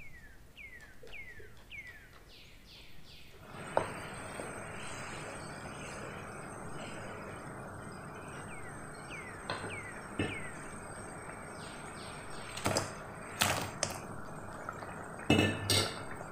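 Blended chili paste bubbling and sizzling in oil in a wok, the oil split from the paste, starting about three and a half seconds in. A wooden spatula knocks and scrapes against the pan several times in the second half, loudest in a quick cluster near the end.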